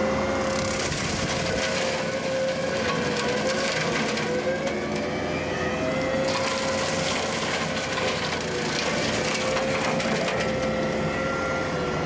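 Hydraulic direct-drive brush mower on a skid steer, running on high flow and mulching buckthorn brush: a steady high whine that dips slightly now and then, over continuous crackling and splintering of wood being crushed by the blades.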